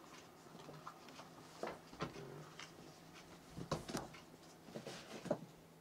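A few light, separate knocks and taps over a faint steady hum.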